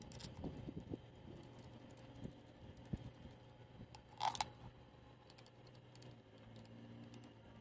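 Faint small metal clicks and taps of a hand tool and fasteners on a car starter motor's end cover as it is put back together by hand, with one sharper metallic clink about four seconds in.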